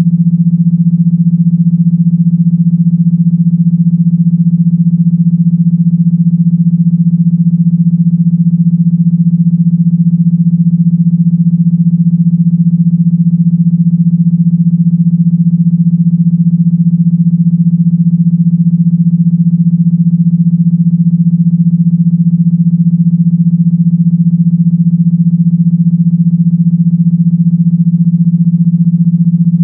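A loud, steady, low buzzing tone held at one pitch without a break: an electronically generated vibration tone of the kind played through a phone speaker to shake water out of it.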